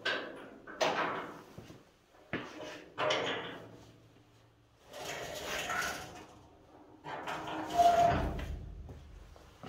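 Steel tailgate of a 1948 GMC pickup being opened and handled: a series of separate metal clunks and clanks from the latches and hinges. The loudest is a heavy thump with a short ring about eight seconds in.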